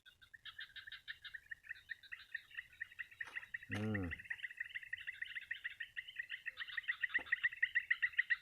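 Wild animals calling around the water: a steady, fast run of high chirps that grows louder toward the end. About four seconds in there is one short, low call with a falling pitch.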